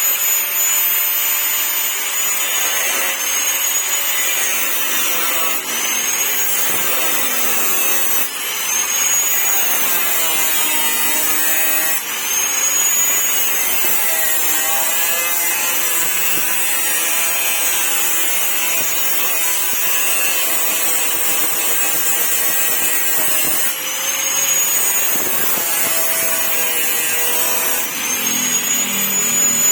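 A high-speed handheld power tool working on car body metal: a steady high whine over a harsh abrasive rasp, the whine dipping in pitch and recovering again and again as the tool is pressed into the panel.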